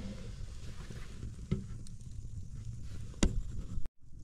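Wood fire burning, a low steady rumble with a few sharp crackling pops, the loudest about three seconds in. The sound drops out for a moment near the end.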